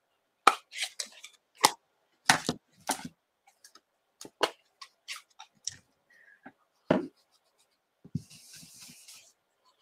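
A series of sharp clicks and taps from a plastic stamp ink pad case being handled and set down. Near the end comes about a second of soft scrubbing hiss from a blending brush being worked on the ink pad.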